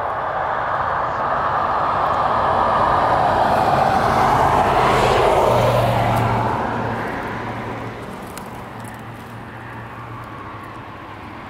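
A motor vehicle passing by: a steady rush with a low engine hum that swells to its loudest about halfway through and then fades away.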